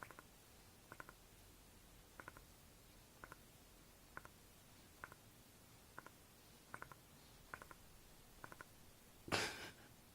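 Small dog snoring softly, with short snores about once a second and one louder, harsher noise about nine seconds in.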